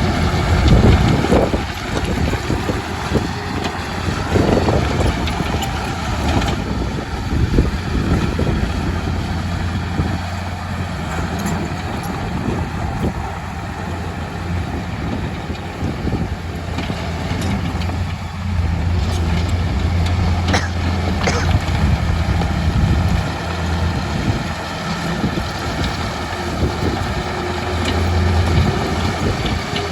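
Komatsu D31P bulldozer's diesel engine running steadily with a deep hum, overlaid by irregular knocks and clanks.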